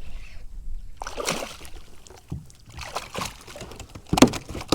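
Water splashing and dripping with scattered knocks and rustles on a kayak as a just-caught flounder is handled, with a couple of sharper knocks near the end.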